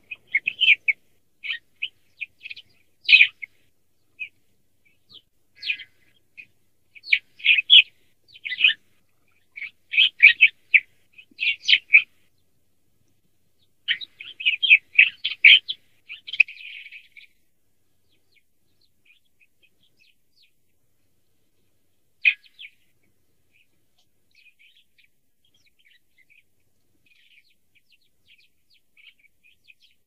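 European starling calling: bursts of quick chirps, clicks and rattles in short phrases, coming thick for the first half, then only a lone chirp and a few faint notes.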